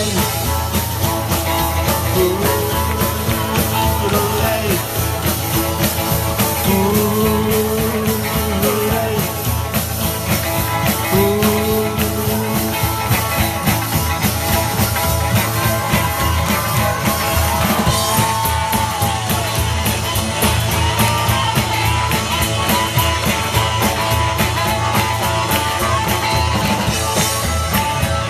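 Live band playing an instrumental break: slapped upright bass, drums and guitars keep a driving rock-and-roll beat under a blues harmonica solo of long, bending notes. Higher bent lead notes come in about two-thirds of the way through.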